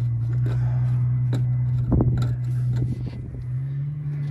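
A steady low mechanical hum, which steps slightly higher in pitch near the end, under scattered clicks and knocks as a coolant hose is worked off the engine by hand.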